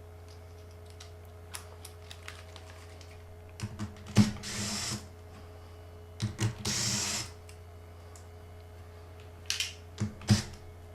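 Screwdriver and laptop parts being handled during a teardown: scattered small clicks and taps, two short rasping noises of under a second each, and more clicks near the end, over a steady low hum.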